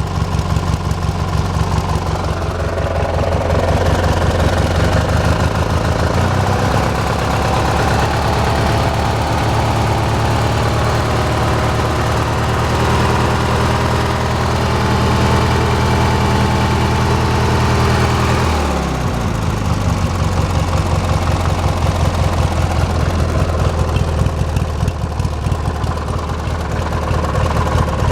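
Small engine of a Hechinger riding lawn tractor running, speeding up a few seconds in, then dropping to a lower speed with a falling pitch about two-thirds of the way through, and picking up again near the end.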